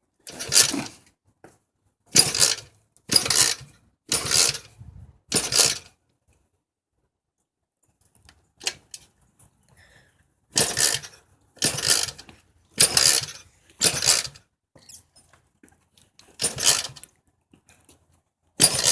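Motorcycle kick-starter being kicked over and over, each stroke a short clattering rush as the engine turns over without catching: the engine won't start. Five kicks about a second apart, a pause of a few seconds, then a second run of kicks.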